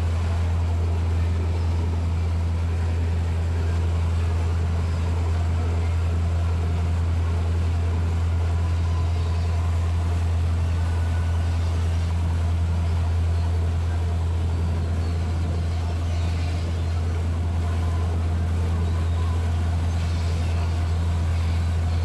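Steady low drone of a tour boat's engine under way, with the rush of water churning in its wake.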